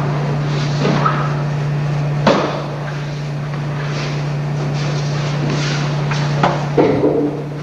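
Aikido practitioners hitting the mat during throws: one sharp thud about two seconds in and a cluster of thuds near the end, over a steady low hum.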